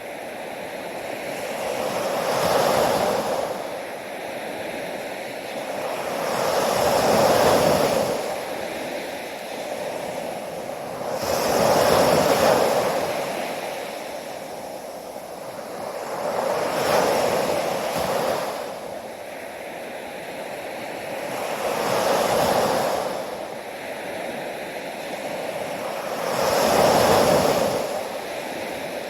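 Ocean waves breaking, the surf swelling and falling back about every five seconds, six times in all.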